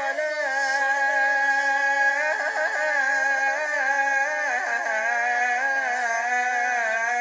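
A man's solo voice calling the adhan (Islamic call to prayer) in the Medina style. He holds a long, steady note, then sings quick ornamental turns and trills from about two seconds in, and settles into another long, wavering held note.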